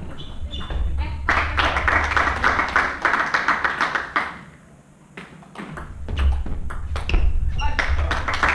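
Table tennis rally: the ball clicking sharply off bats and table in quick alternation, starting after a short lull for the serve. Before that, about three seconds of dense clatter.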